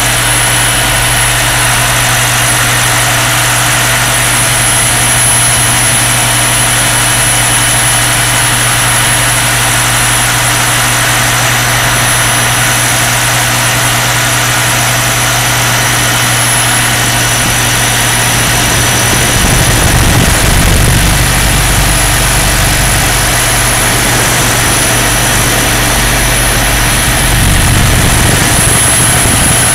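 Large radio-controlled EC135 scale model helicopter in flight, heard from a camera mounted on its body: a steady engine and rotor drone with a thin high whine over it. A low rumble swells up twice, about two-thirds in and near the end, as the helicopter climbs and banks.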